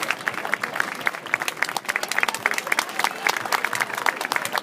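Audience applauding, a dense, irregular patter of many hand claps.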